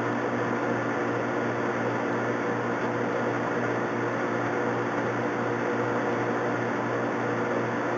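Metal lathe running at a steady speed, its motor and gear train giving a steady hum with several fixed tones, while it turns a rifle barrel set up for threading.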